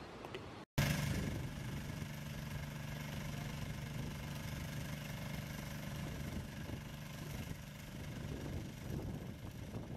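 Engine of an aerial work platform (boom lift) running steadily with a constant hum, starting abruptly about a second in after a brief gap.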